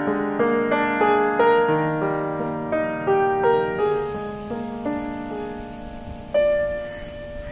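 Background piano music: a gentle melody of single struck notes that thins out, with one long held note about six seconds in.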